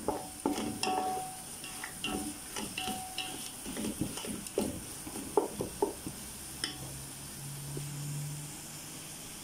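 Wooden spatula stirring prawns, onions and spices in a metal pot, scraping and knocking against the pot over a steady sizzle of frying. The stirring stops about two-thirds of the way through, leaving the sizzle and a faint low hum.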